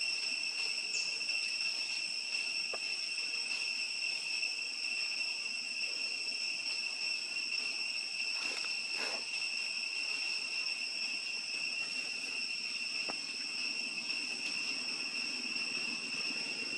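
Steady, unbroken high-pitched drone of an insect chorus, with a few faint ticks and a brief rustle about nine seconds in.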